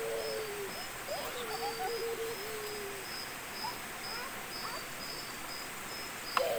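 An insect, likely a cricket, chirping steadily at about two to three chirps a second over a low steady hiss. Faint sliding, wavering calls come and go, and a couple of sharp clicks sound near the end.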